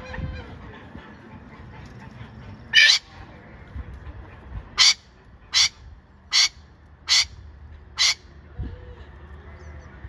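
A farm bird giving loud, harsh, short calls: one call, then a run of five evenly spaced about 0.8 s apart.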